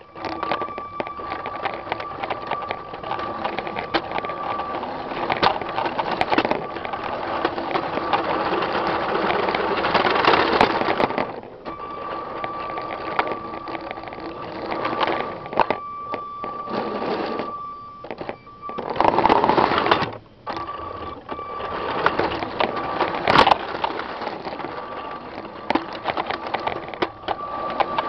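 Lego train's small electric motor whirring, with its wheels clicking and rattling over the plastic track. The whir starts suddenly and drops away briefly several times in the second half.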